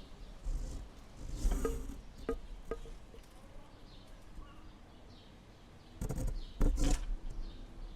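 Wind gusting, with low rumbling buffets about half a second in, about a second and a half in, and again between six and seven seconds, and a few sharp clicks in between.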